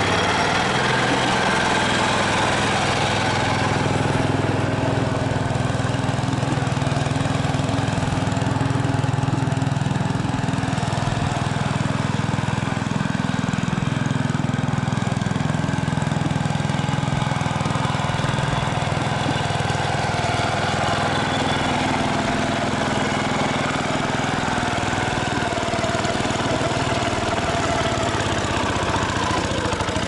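Small single-cylinder engine of a 1960s Essick road roller running steadily while the roller is driven, at an even level throughout.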